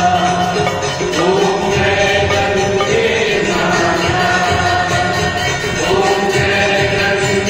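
Hindu aarti hymn sung by a group, with voices holding long notes over jingling percussion.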